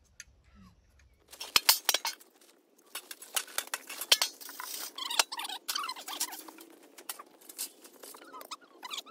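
Quick clicks, rattles and rustling of camp gear being handled as a large fabric beach umbrella is folded down and furled, starting about a second in.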